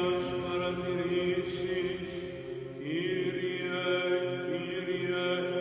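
Background music: a slow, chant-like drone of long held notes that slide to a new pitch now and then.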